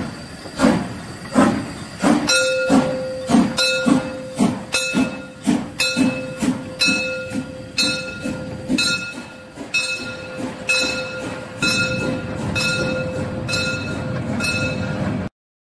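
Narrow-gauge steam tank locomotive 99 2322 working its train past at low speed, its exhaust chuffing in a regular beat about twice a second. A steady high squeal joins from about two seconds in. All of it cuts off suddenly near the end.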